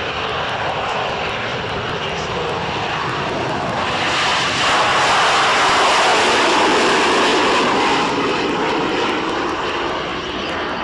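Harrier GR7 jet with its Rolls-Royce Pegasus engine flying a display pass: loud jet noise that swells about four seconds in, stays loudest for a few seconds, then eases off.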